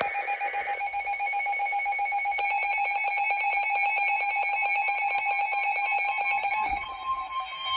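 Electronic alert tones of a weather radio announcing a severe thunderstorm warning: a loud, shrill alarm that beeps rapidly many times a second, then changes near the end to a single steady tone, the warning alarm tone that comes before the spoken message.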